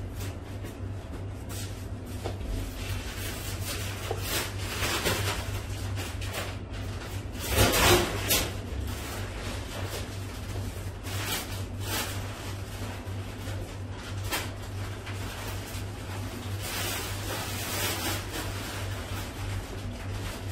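Boning knife slicing and scraping through a raw beef hanger steak on a cutting board, in short irregular strokes, with trimmings being handled, over a steady low hum. A louder noise lasting about a second comes about eight seconds in.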